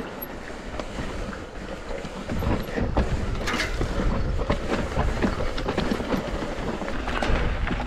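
Mountain bike riding down a steep, loose dirt line: tyres rolling and sliding over dirt and rocks and the bike rattling, with many irregular knocks. A low rumble grows louder about two seconds in.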